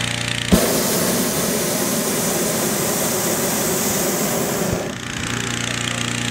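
Hot-air balloon propane burner firing one blast of about four seconds: a loud, even roar that starts suddenly about half a second in and cuts off near the end. A small engine, the inflator fan, runs steadily underneath.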